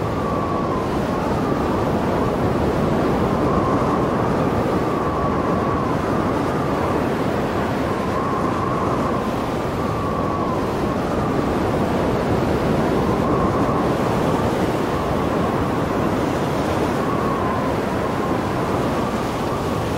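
Heavy storm surf: a steady rush of large waves breaking and churning over sand and rocks, with wind blowing across the microphone.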